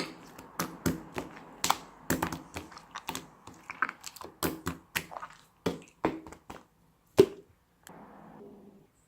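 Irregular sharp clicks and taps, two or three a second, the loudest a little past seven seconds in, followed by a short soft rustle near the end.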